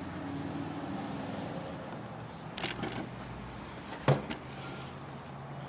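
Steel mower blades knocking and clinking against each other a few times, the sharpest knock about four seconds in, over a steady low hum.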